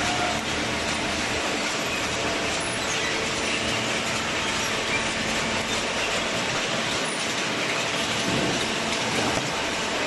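Semi-automatic horizontal cardboard baler running: a steady mechanical noise with a faint hum.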